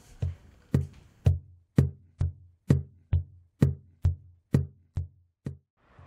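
A slow, steady beat of deep drum hits, about two a second and a dozen in all, each with a sharp attack and a short low ring; the beat stops shortly before the end.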